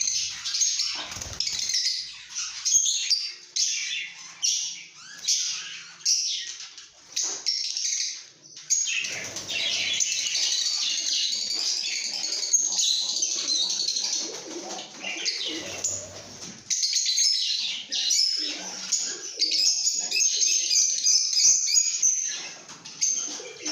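A flock of lovebirds chirping and chattering, with many short, high calls overlapping almost without a break. The calls thicken into a busier chatter about nine seconds in and again near the end.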